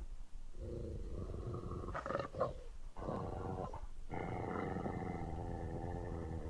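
Film sound effect of a large dog growling: two long, drawn-out growls, with a few short, sharper sounds between them.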